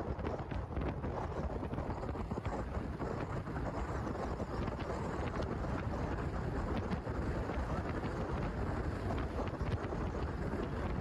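Wind blowing hard across the microphone, a steady low rush of wind noise.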